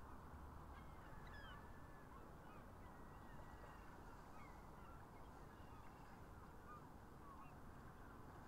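Faint, scattered calls of many distant birds over a low, steady background hiss.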